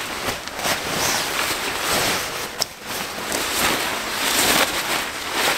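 Nylon fabric rustling and swishing as a sleeping bag is pushed and stuffed into a hammock, in repeated rough surges with a single sharp click partway through.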